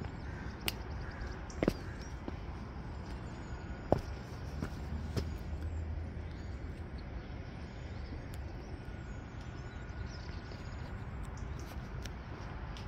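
Outdoor city ambience: a steady low rumble, with a few sharp clicks in the first five seconds.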